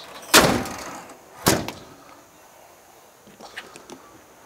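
Equipment compartment door on a fire engine being worked. A loud noise lasting about half a second comes about a third of a second in, then a sharp bang about a second later, followed by a few faint clicks.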